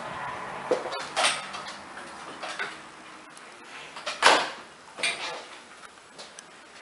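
Irregular footsteps and scuffs on a laminate floor, with a few knocks from handling, the loudest a little over four seconds in.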